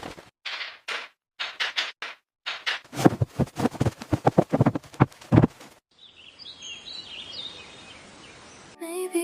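Rapid, irregular hammering strikes in quick clusters for about six seconds, then a few seconds of faint bird chirps.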